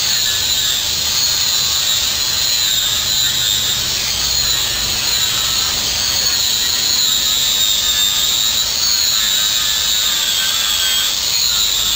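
A motor or power tool running steadily, a high whine that slowly wavers in pitch over a low hum.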